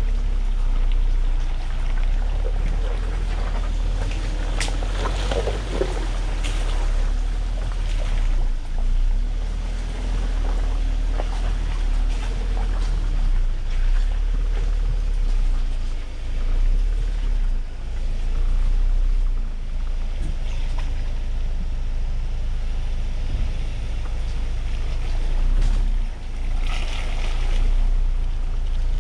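2020 Ford Ranger 4x4 driving over a rough trail: a steady low rumble that swells and dips, with wind buffeting the microphone and a few scattered knocks.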